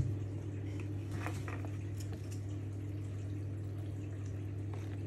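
Cake batter being stirred in a plastic mixing bowl: faint soft scrapes and a few light clicks over a steady low hum.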